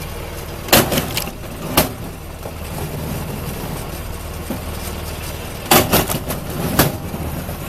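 A machine's engine running steadily, with sharp knocks or cracks: a cluster about a second in and another around six to seven seconds in.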